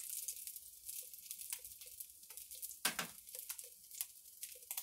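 Salmon searing in hot oil in an electric skillet: a steady sizzle with irregular crackling spatters, and one louder crack about three seconds in.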